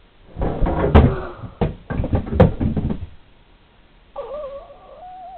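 A person falling out of a handstand against a wooden rail: a cluster of heavy thuds and knocks with two sharp cracks, lasting about two and a half seconds. Near the end a long, wavering vocal moan follows.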